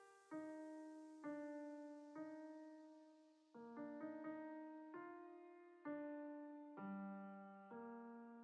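Soft solo piano music: slow single notes and chords, each struck and left to fade, roughly one a second.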